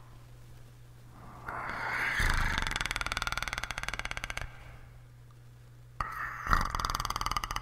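A man's throat imitating the Predator creature's guttural clicking rattle, a fast pulsing growl. Two bouts: one swells up about a second and a half in and fades out, a second starts sharply near the end.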